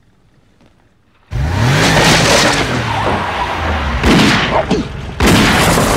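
After a quiet first second, a car engine revs hard and its tyres skid and slide on a dirt road. Gunshots go off about four seconds in.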